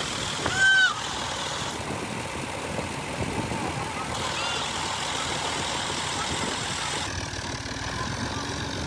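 Combine harvester running steadily while harvesting wheat, its engine and threshing machinery making a dense, even noise. About half a second in, a short, loud high-pitched call rises and falls over it.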